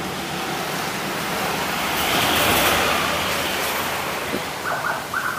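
Road traffic noise: a rushing vehicle sound that swells and fades about halfway through.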